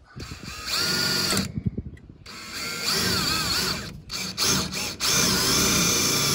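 DeWalt cordless drill boring up through a PVC pipe into a wooden beam, run in three short bursts; its motor whine dips and wavers under load in the middle burst. A sharp knock comes right at the end.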